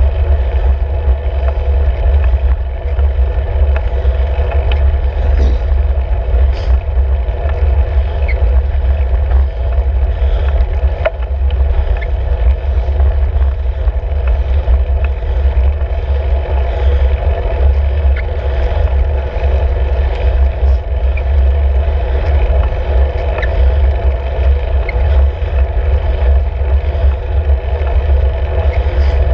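Steady wind buffeting and road rumble picked up by a handlebar-mounted camera on a road bicycle being ridden uphill, with a few light clicks.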